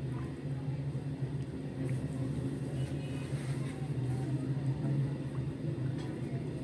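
A steady low hum runs throughout, with a few faint scrapes and clicks from a silicone spatula stirring sugar and water in a nonstick pan as the sugar melts.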